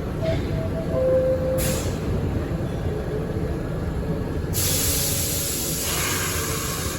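R62A subway car running, a steady low rumble with a few short squeal tones in the first two seconds. About halfway through a loud air hiss starts suddenly and fades away, typical of the air brakes venting.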